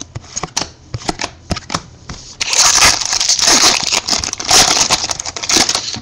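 Trading cards handled with light clicks and flicks, then from about two and a half seconds in a foil trading-card pack wrapper torn open and crinkled.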